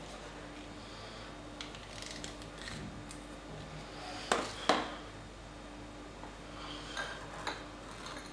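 Blue plastic ice cream scoop scraping through ice cream in a plastic tub and setting scoops into glass dessert cups: soft scrapes with two sharp clicks about halfway through and two lighter ones near the end.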